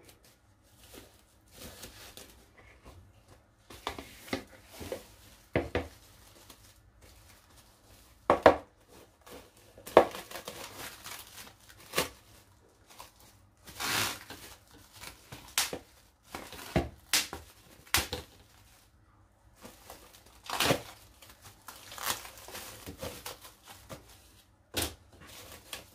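Plastic cling film being pulled off its roll, torn and stretched over a plastic mixing bowl of dough: irregular crinkles, crackles and rips, the loudest of them in the middle of the stretch.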